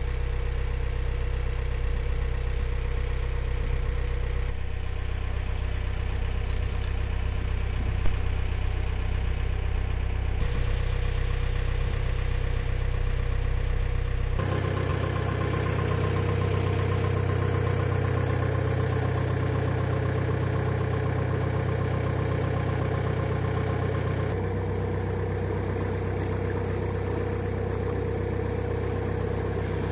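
Narrowboat's engine running steadily as the boat cruises along the canal, heard from on board; the engine note shifts abruptly a few times, with one short click about eight seconds in.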